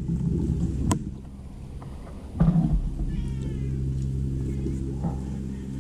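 A domestic cat meowing, with one clear meow about three seconds in, over a steady low hum. A sharp click sounds about a second in.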